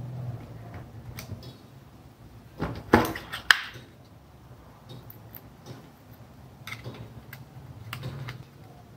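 Plastic-cased contactor and wire being handled on a tabletop: scattered clicks and knocks of hard plastic, the loudest a pair about three seconds in.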